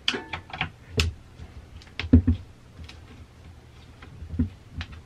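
Irregular clicks and light knocks from a screwdriver working on the plastic housing screws of a DeWALT 20V reciprocating saw as they are taken out, with the loudest pair of knocks about two seconds in.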